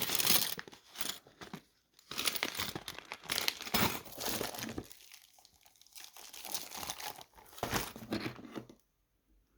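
Kit packaging crinkling and rustling in irregular bursts while the parts are handled, falling quiet near the end.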